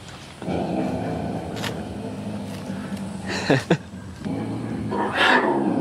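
Recorded mountain lion growling, played loud through a large speaker: two long low growls with a short falling cry between them about three and a half seconds in.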